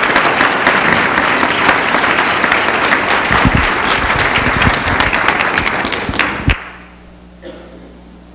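Audience applauding, a dense patter of many hands clapping that stops abruptly about six and a half seconds in. A quiet room with a steady low hum is left.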